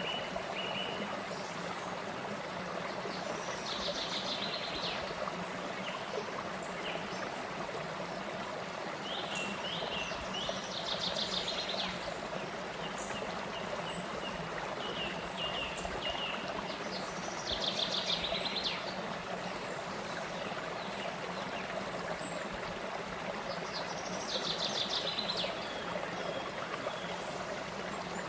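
Shallow stream flowing over rocks and small cascades, a steady rush of water. A bird sings a short trilled phrase over it, repeated about every six to seven seconds.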